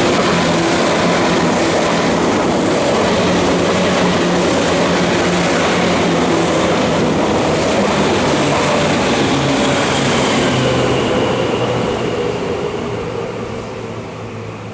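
Tokyu 8500 series electric train running, the loud hum and whine of its traction motors over the steady rumble and hiss of the wheels on the rails. The sound fades away over the last few seconds.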